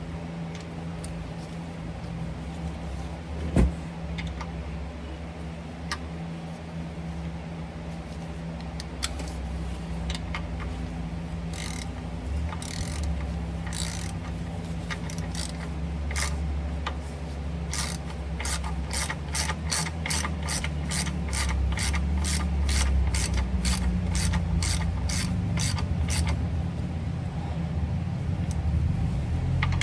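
Hand ratchet clicking as a stud is driven into the PTO mounting housing on a truck transmission, with a single knock about three and a half seconds in. The clicks are scattered at first, then run steadily at about two or three a second through the second half.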